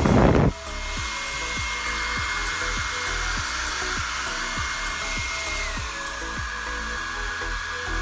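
Bosch Beautixx Travel hair dryer blowing steadily, a rush of air with a thin high motor whine; it is loudest in the first half second, and a little over halfway through the whine steps down to a lower pitch.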